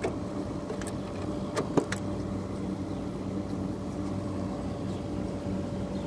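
Vintage Fedders 4000 BTU window air conditioner running with a steady hum from its compressor and fan. A few sharp clicks in the first two seconds come from the unit's controls being handled.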